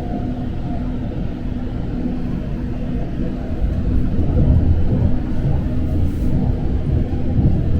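A passenger train running at speed, heard from on board: a steady low rumble with a steady hum over it, swelling somewhat about halfway through.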